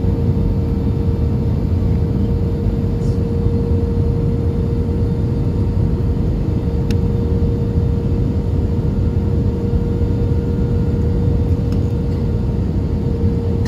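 Cabin noise inside an Airbus A320 airliner during its descent to land: a steady low rumble of engines and airflow with a constant hum over it.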